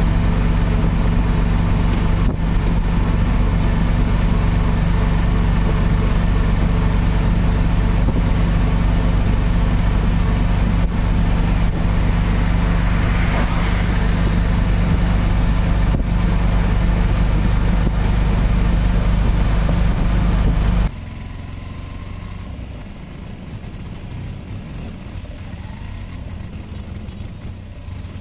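Steady road noise and engine drone of a vehicle moving fast on a highway, heard from inside it. About two-thirds of the way through, it cuts off suddenly to a much quieter vehicle rumble.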